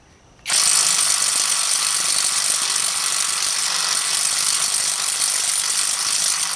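KIMO 20V brushless cordless impact wrench (model 3603B, half-inch drive) hammering steadily on a rusty lug nut to break it loose. It starts about half a second in.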